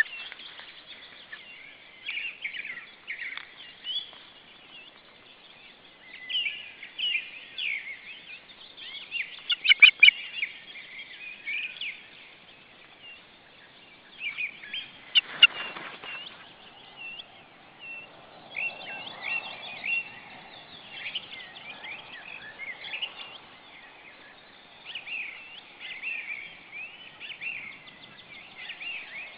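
Ospreys calling at the nest: series of short, high chirps repeated throughout, loudest in clusters around ten seconds in, with a brief rustling noise about fifteen seconds in.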